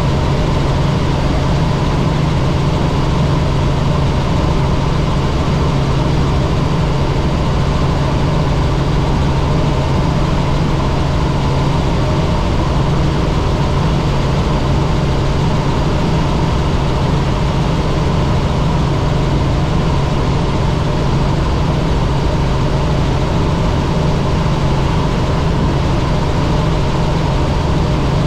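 Helicopter engine and rotors running with a steady, loud drone made of a deep hum and several constant higher tones, unchanging throughout.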